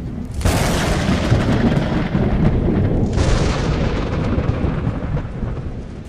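Thunder: a sudden loud crack about half a second in, a second burst near three seconds, and a deep rumble between them that fades near the end.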